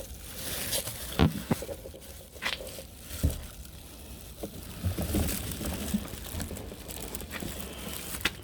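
Hands rustling and crinkling plastic, with scattered knocks and clicks, as a bendy filler pipe from a diesel can is worked into a diesel heater's fuel tank filler.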